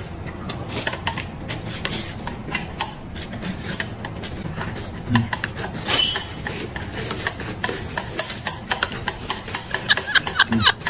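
Noodles being eaten fast from a bowl with chopsticks: steady slurping and smacking with many short clicks, and one louder slurp about halfway through.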